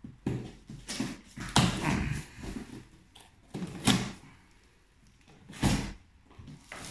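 Cardboard carton and its contents being rummaged through: a string of separate rustles, scrapes and knocks as heavy boxed fireworks are shifted inside it, the loudest about one and a half seconds, four seconds and six seconds in.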